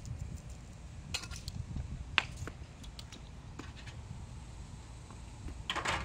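Scattered clicks and clinks of a metal shaker can, a paint roller and a metal roller tray being handled, the sharpest about two seconds in and a quick cluster near the end, over a low steady rumble.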